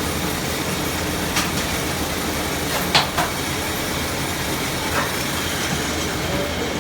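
Workshop machinery running with a steady mechanical rumble, with a few sharp metallic clicks or knocks over it, the loudest about three seconds in.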